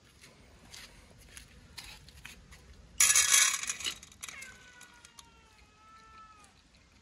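Animal vocalizing: a loud, harsh, noisy sound lasting about a second, about three seconds in, followed by a drawn-out whining call of about two seconds that falls slightly in pitch. Faint scattered taps and clicks around it.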